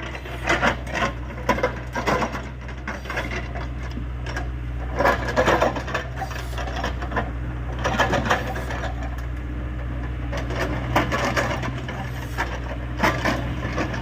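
Excavator-mounted hydraulic rock breaker hammering rock in several short bursts of rapid blows, over the steady low running of the Hyundai 85A excavator's diesel engine.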